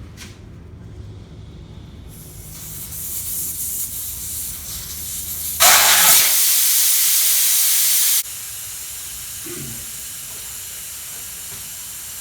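Air hissing out of an 18-wheeler truck tire through its open valve stem, the valve core removed to deflate it. The hiss builds, becomes much louder for about two and a half seconds in the middle, drops back abruptly, and carries on steadily.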